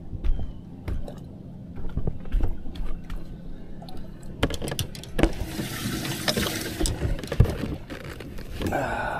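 Knocks and clicks of handling on a fibreglass boat deck as a caught crappie is dealt with. In the middle comes a rush of splashing water lasting about a second and a half.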